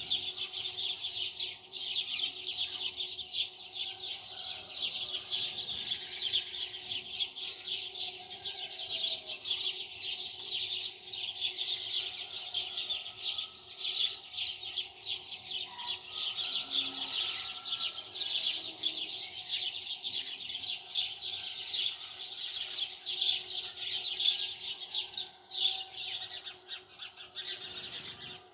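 Many small birds chirping at once in a dense, continuous chorus of quick, high chirps, with a faint steady hum beneath.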